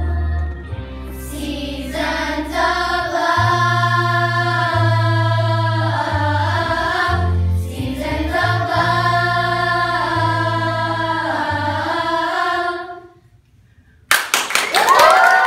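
A children's choir sings a Broadway show tune over musical accompaniment with a steady bass line, and the song ends about 13 seconds in. After a brief pause, the audience breaks into applause and cheering near the end.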